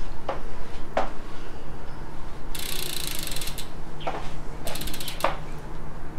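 Bicycle rear hub's freehub ratcheting as the wheel is spun on a stand: short clunks from the chain and Shimano derailleur, then two runs of rapid fine clicking from the pawls as the wheel coasts.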